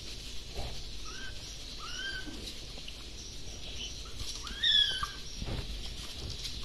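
Very young kittens mewing: a few short, high mews that rise and fall in pitch, the loudest a little past the middle.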